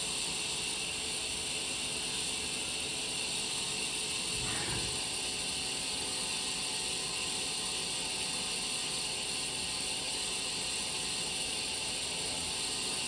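DMG Mori ecoMill 1100V vertical milling machine running on test, a steady high-pitched hiss with faint steady tones underneath.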